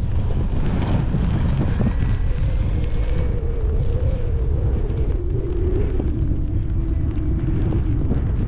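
Strong wind buffeting the microphone. Through it, from about two seconds in, comes the thin whine of the E-flite Extra 300 model plane's electric motor, wavering and slowly sinking in pitch.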